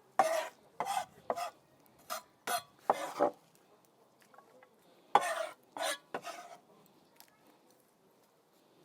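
Chopped salad being stirred and tossed in a bowl: a run of short scraping strokes over about three seconds, then three more a couple of seconds later.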